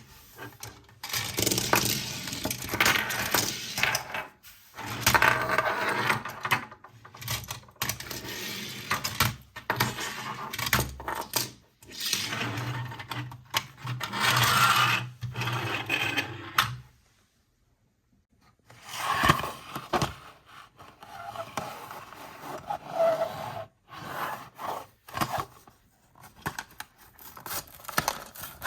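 Plastic toys and parts being handled, with irregular scraping, clicking and clattering. A low steady hum runs underneath until about two-thirds through, when everything stops for a couple of seconds before the handling resumes.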